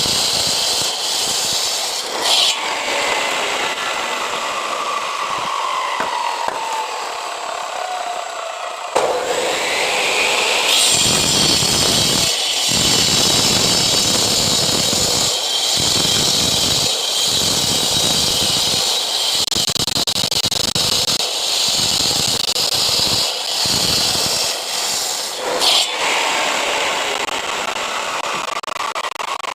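Power cutter with an abrasive disc, such as an angle grinder, cutting concrete paving blocks: a continuous gritty whine. The pitch sags slowly while the disc bites, then climbs sharply back up about nine seconds in as the load eases, and holds high while cutting continues.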